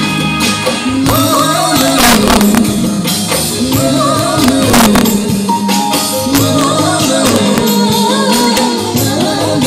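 A live band performing an Assamese pop song, with electric guitars, keyboard and drums. A sung melody comes in about a second in, with a couple of sharp percussion hits along the way.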